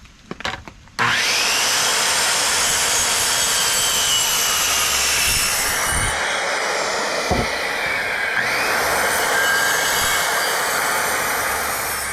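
Electric power saw spinning up about a second in and cutting through a wooden post to length, running steadily to the end.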